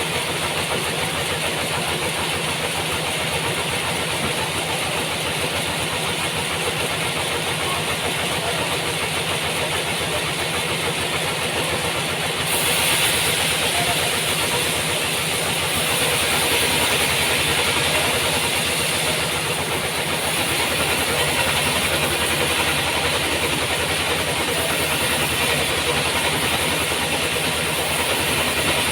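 Engine-driven sawmill running steadily, with a hissing saw noise that grows louder about twelve seconds in and stays up, as the blade cuts through a large trembesi log.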